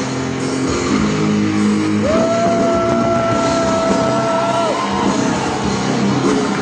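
Loud rock music with guitar. A single high note is held from about two seconds in for nearly three seconds.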